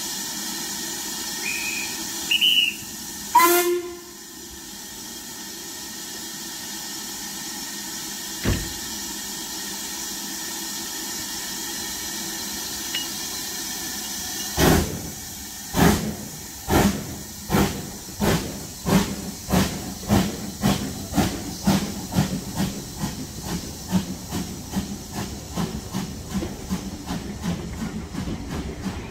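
LMS Ivatt Class 2MT 2-6-2 tank engine No 41241 standing with steam hissing. Two short high whistle notes come, then a short blast on the locomotive's steam whistle, and a single thump. It then starts its train away: the exhaust beats begin about a second apart and quicken to about three a second as it gathers speed.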